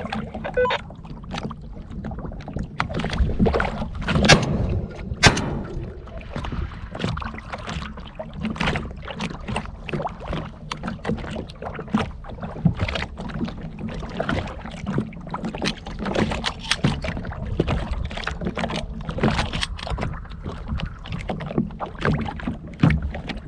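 Small waves slapping irregularly against the hull of a low layout boat on choppy water, with a steady low rumble underneath. Two louder knocks stand out about four and five seconds in.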